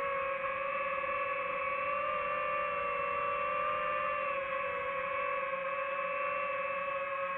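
DJI FPV drone's motors and propellers whining steadily in a low hover, the pitch wavering slightly as it drifts forward.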